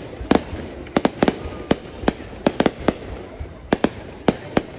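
Fireworks going off: an irregular series of about a dozen sharp bangs, some in quick clusters of two or three.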